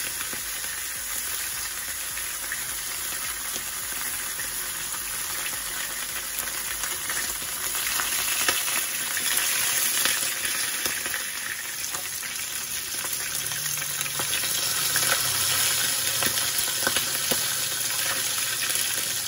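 Whole blackhead sea bream sizzling steadily as it pan-fries in hot oil, with scattered sharp pops of spattering oil.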